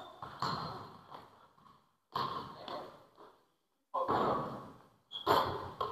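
A person breathing heavily close to the microphone: four breathy exhales like sighs, about every one and a half to two seconds, each fading out.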